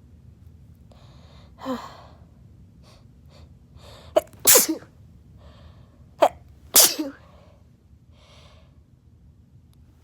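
A person sneezing twice in quick succession, about four and a half and seven seconds in, after a few seconds of breathy, catching inhales building up. This is a deliberately induced sneeze fit.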